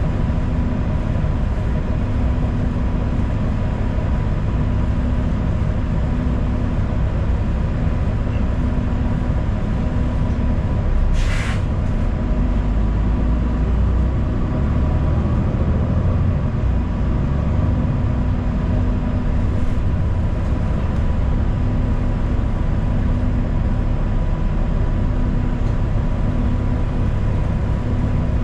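City transit bus running, heard from inside the passenger cabin: a steady low engine and road rumble with a faint constant whine. About 11 seconds in comes one short hiss of air, typical of the bus's air brakes.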